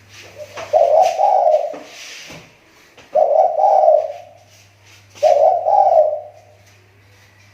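Spotted dove (tekukur) cooing: three loud coo phrases about two seconds apart. It is a decoy (pikat) bird whose call is recovering after a spell of poor voice.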